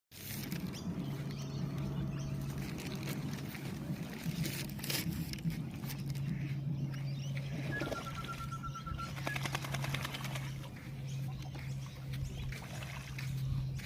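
Ducks splashing as they bathe in river water, with a steady low hum underneath. A short, quick run of repeated high bird notes comes about eight seconds in.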